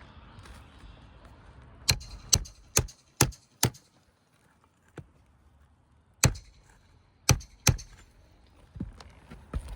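Hammer striking a snake tool to drive roofing nails under a lifted shingle: a run of five quick metallic blows about half a second apart, then a pause and three more sharp strikes.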